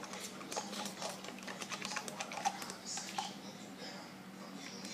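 A utensil stirring a sticky soap-and-syrup slime mixture in a cup, giving quick, irregular light clicks and scrapes.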